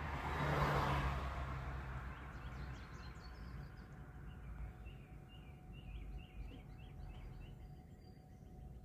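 Small birds chirping, many short repeated chirps in the middle of the stretch, over a low steady hum. A soft rushing swell of noise comes and goes in the first two seconds.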